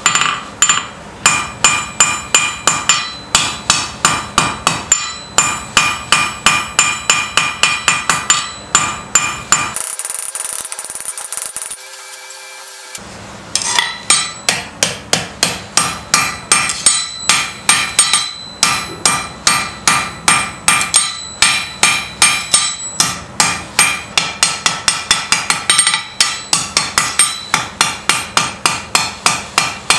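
Blacksmith's hand hammer forging a red-hot steel bar on an anvil: steady blows about three a second, each with a bright anvil ring. There is a pause of about three seconds around ten seconds in.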